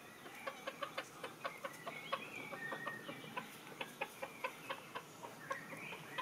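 Chicken clucking softly, a steady run of short clucks about four a second, with a few thin high whistled bird calls over it.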